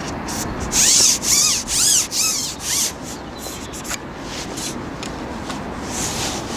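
Carbon fishing pole rubbing and squeaking as it is slid back by hand over the rests while a hooked bream is played: four or five loud rubbing strokes with squeaky whines that rise and fall in the first three seconds, then quieter scrapes.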